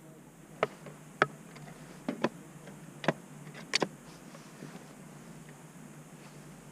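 A run of sharp clacks and knocks from the chairlift ride, about seven in the first few seconds and irregularly spaced, then only a steady low hum.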